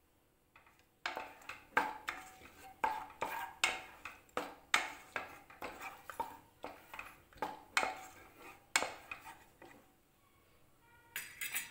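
Wooden spoon stirring yogurt in a metal pan, knocking and scraping against the pan about once or twice a second, then stopping. A frying sizzle starts near the end.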